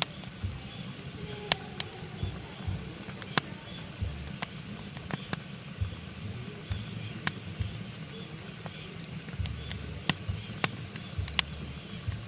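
Pine logs burning in a fireplace, crackling with irregular sharp pops over a steady low rumble and hiss of the flames.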